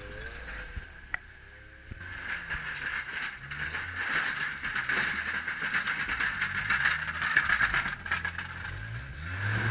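Snowmobile engines running at low speed with rattling and clattering, inside a narrow stone tunnel. The sound dips for a moment about a second in, then picks up again.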